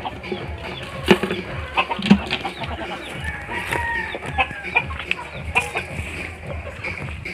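Native chickens clucking and calling, with a few short drawn-out notes in the middle. Two sharp knocks about one and two seconds in.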